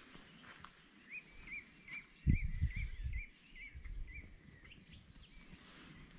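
A bird calling outdoors, a short wavering note repeated about three times a second for a few seconds, over gusts of wind buffeting the microphone, the loudest gust a little over two seconds in.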